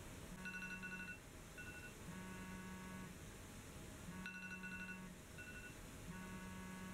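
Smartphone timer alarm ringing: a repeating pattern of short electronic tone phrases, each about a second long with a low buzz under it, the sequence starting over about every four seconds.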